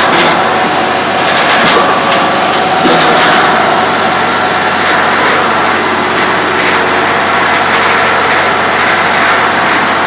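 A firewood processor running, giving a loud, steady machine noise from its drive and conveyor. A few knocks come in the first three seconds as cut redgum rounds tumble onto the outfeed conveyor.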